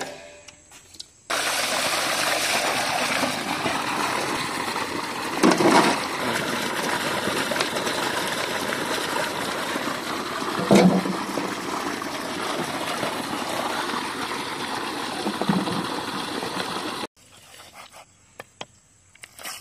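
Water rushing and splashing in a basin as small onions and green chillies are washed by hand: a steady rush with a few louder splashes, cutting off sharply near the end.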